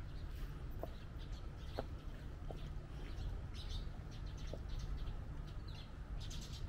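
Small birds chirping in short, scattered calls, over a steady low background rumble.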